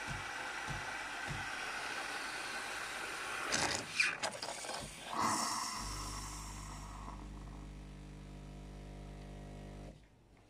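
Siemens EQ.500 integral bean-to-cup coffee machine working through a drink: a steady hiss, a few loud clatters in the middle, then a steady electric hum that cuts off suddenly near the end.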